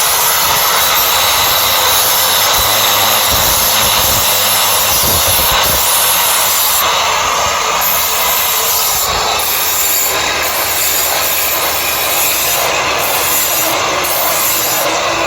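Knife blade held against a spinning sharpening wheel, a steady grinding rasp that keeps on without a break.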